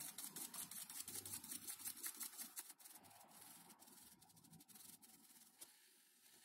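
Kitchen sponge dabbing acrylic paint onto a foam model-plane wing: quick soft taps with a faint scrubbing sound, several a second. It is busiest for the first three seconds or so, then fainter.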